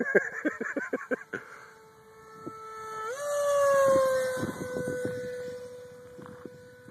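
Ducted-fan RC jet flying a fast low pass, its fan whine a steady high tone. About three seconds in the whine jumps up in pitch and grows loudest, then slides slowly down in pitch and fades as the jet goes by.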